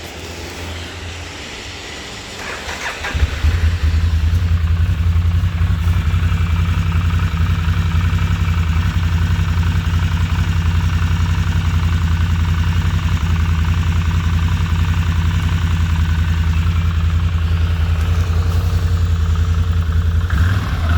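Can-Am twin-cylinder engine cranking for about three seconds, catching, and then idling steadily. It runs with no piston slap, on two newly fitted pistons.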